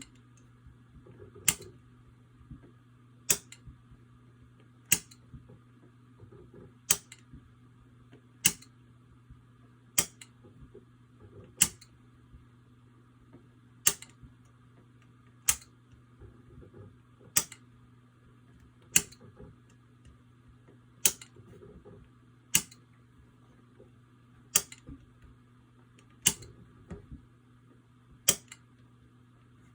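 Sharp clicks of a toggle switch being flipped over and over, about every second and three-quarters, sixteen times. It is switching the input of a Fibaro FGS-223 relay module to test whether it toggles the light reliably.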